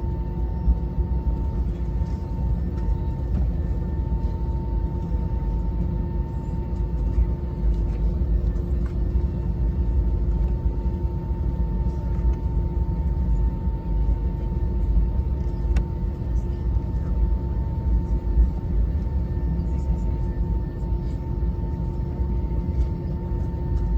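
Cabin noise inside an Airbus A320-214: a steady low rumble with a constant whine from the CFM56 engines running at an even thrust setting.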